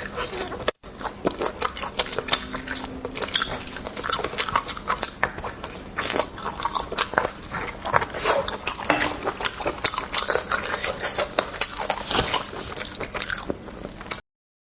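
Close-miked eating sounds of beef bone marrow: wet slurping, sucking and lip-smacking as marrow is drawn from the bones, a dense run of irregular clicks and smacks. It cuts off suddenly near the end.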